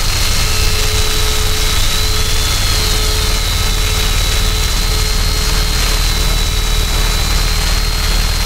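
Harsh noise music made with electronics: a steady, dense wall of hiss and low rumble, with thin held whistling tones on top, the highest one wavering slightly in pitch.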